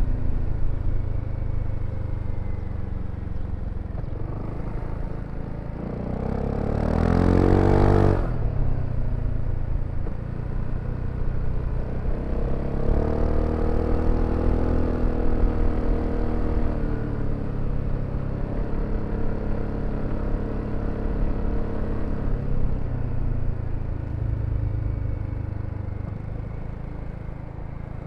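BMW C400X scooter's single-cylinder engine running while riding, with steady low road and wind noise. The engine pitch climbs quickly under acceleration about a quarter of the way in, ending abruptly, and rises again near the middle, holding briefly before easing off.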